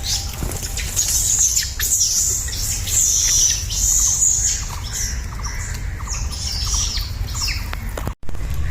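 A run of many short, high-pitched squeaking animal calls over a steady low rumble, with the sound dropping out briefly near the end.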